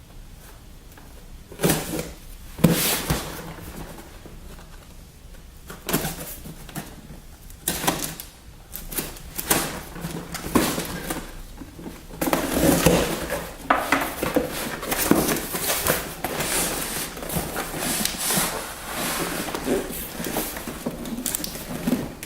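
A cardboard case of packaged Hot Wheels cars being opened and unpacked: a few separate knocks and tearing sounds, then near-continuous rustling and scraping of cardboard and carded blister packs from about eight seconds in.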